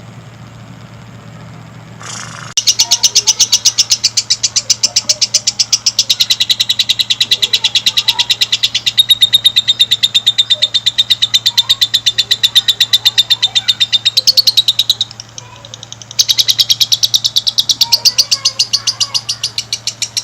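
Lovebird giving a long chattering call: a fast, even string of shrill notes, about seven a second, lasting around twelve seconds. It breaks off briefly, then starts again for a few more seconds, with a low steady hum underneath.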